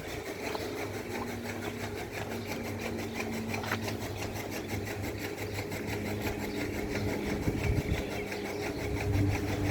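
A small engine or motor running steadily, with a fast, even mechanical clatter.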